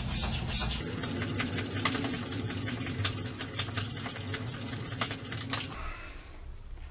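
Bicycle floor pump being worked quickly to inflate a plastic bottle through a Schrader valve: rapid, regular strokes with a click on each, stopping about six seconds in.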